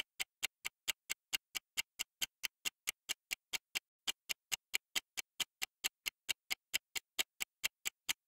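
Countdown-timer sound effect: rapid, evenly spaced clock ticks, about four or five a second, marking the seconds running out to answer a quiz question.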